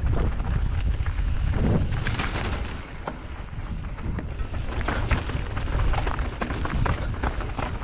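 Canyon Strive CFR enduro mountain bike on a rough descent: a steady low wind rumble on the microphone with rapid sharp knocks and rattles from the bike over rough ground, thickest in the second half.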